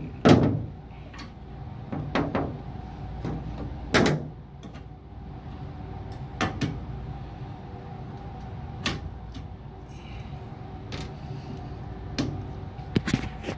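Steady hum of running HVAC equipment, broken by scattered sharp knocks and clicks from parts being handled, the loudest just after the start and about four seconds in.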